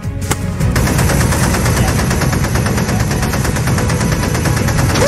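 A rapid, unbroken string of bangs over a low rumble, in a cartoon's sound effects, starting just after a thumb presses a red detonator button.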